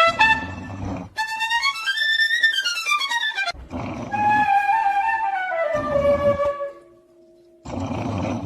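Music with a fiddle-like sound gliding up and down in long pitch slides, in short sections that change abruptly.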